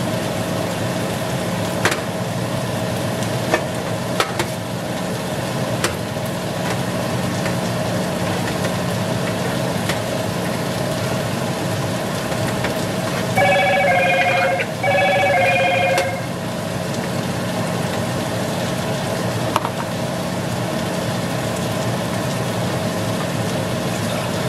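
Diced chicken breast sizzling steadily in a frying pan, with a few light clicks. About halfway through, an electronic telephone-like ring sounds in two bursts of about a second each.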